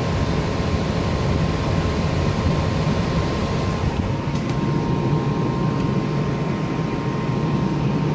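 Gas furnace blower fan running steadily with a thin whine over it. The burners are out, so it is just blowing cold air.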